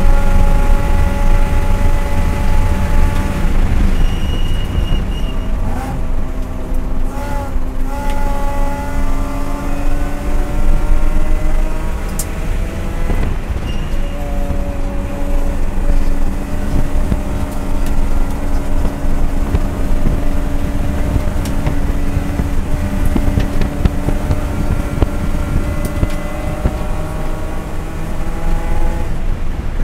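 ST4 race car's engine at full throttle, heard from inside the cabin over heavy road and wind rumble. The revs climb steadily, break off with a lift and a couple of downshift blips about seven seconds in, and dip again near the middle before climbing steadily in fourth gear.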